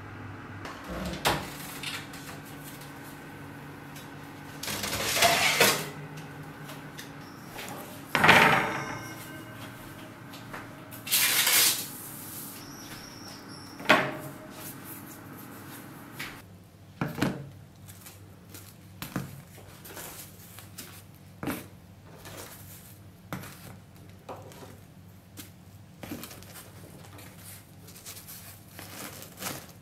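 Kitchen handling sounds: a few short bursts of clatter and scraping from pans or trays over a steady low hum that fades about halfway through, then a run of light knocks and taps.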